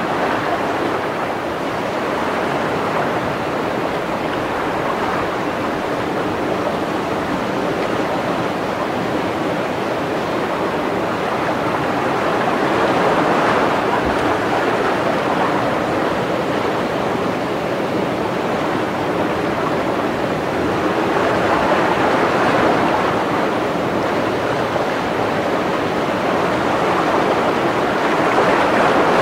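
Steady rush of moving water from an open aquarium tank, swelling a little a few times.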